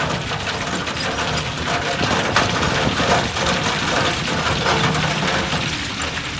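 Crawler bulldozer at work: its diesel engine runs steadily under a continuous clatter of tracks and rattling metal.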